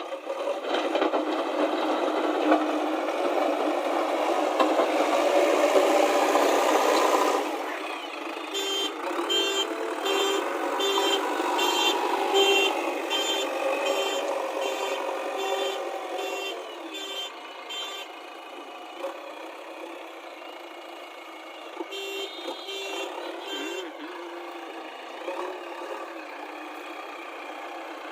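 JCB backhoe loader's engine running loud under load, easing off after about seven seconds. A reversing alarm then beeps at an even pace, about one and a half beeps a second, stops, and beeps again briefly near the end.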